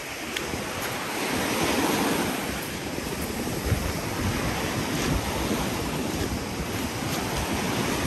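Sea waves washing onto the shore, swelling about two seconds in, with wind buffeting the microphone in low rumbles.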